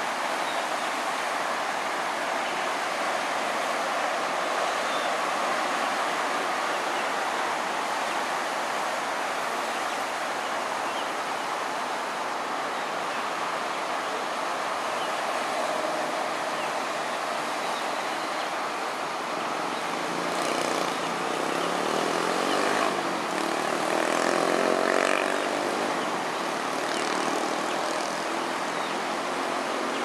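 Steady road traffic noise at a busy junction. A vehicle passes close by between about 20 and 26 seconds in, briefly louder.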